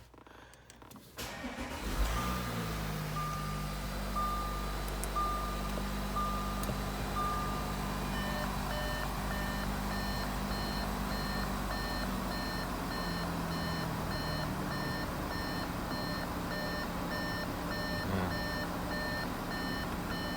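Audi Q5 engine starting about two seconds in and then idling steadily, heard from inside the car. A warning chime repeats over it about once a second: a single low beep at first, then a higher, brighter chime from about eight seconds in.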